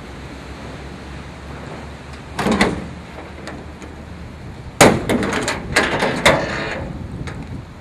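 Hood of a 1939 Cadillac V16 being opened. A clunk about two and a half seconds in, then a sharp metal clank near the middle followed by a quick run of rattling clicks as the hood panel and latches are handled.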